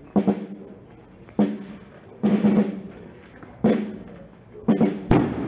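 Drums beating a slow processional march: a sharp stroke or short roll about once a second, each one fading before the next. A very sharp click cuts in near the end.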